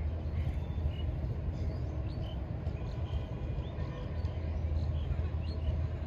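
Outdoor ambience: a steady low rumble with faint, short high chirps scattered through it.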